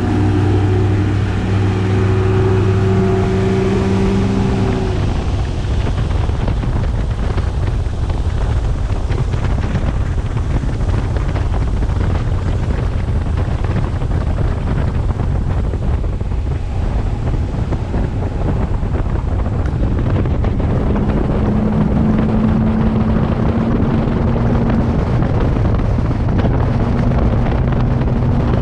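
Bass boat's outboard motor running at speed, with wind buffeting the microphone. The engine's hum is clear for the first few seconds, then is mostly buried under wind and water rush, and comes through again about twenty seconds in.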